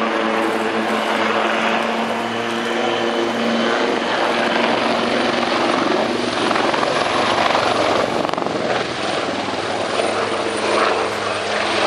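Westland AW159 Wildcat helicopter in flight, its twin turboshaft engines and rotor giving a steady hum with rotor noise. The rotor noise swells into a broad rush around the middle as it banks away, and the hum comes back faintly near the end.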